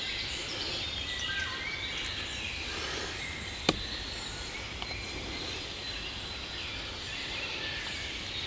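Woodland birds singing in short whistled phrases over a steady outdoor background. A single sharp knock about three and a half seconds in: a knife blade jabbed into a fallen log.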